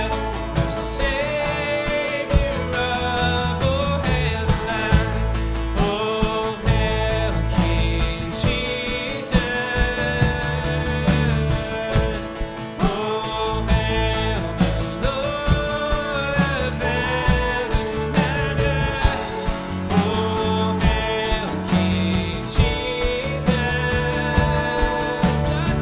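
Worship band music: a song at a steady tempo with a regular beat and a bass line under a melodic lead line.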